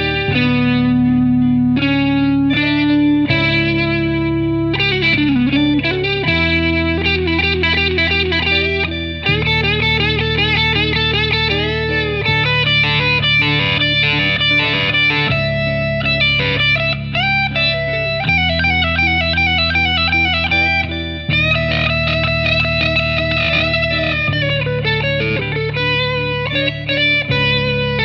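Drumless instrumental guitar music in a minor Dorian mode. Sustained low chords change about every three seconds under a lead guitar melody with bent and wavering notes.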